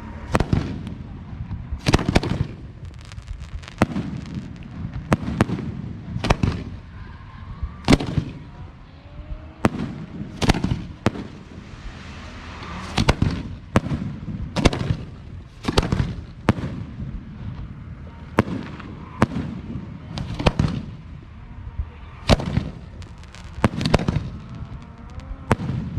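Aerial fireworks exploding in a steady stream of loud bursts, about one to two a second, each blast echoing briefly.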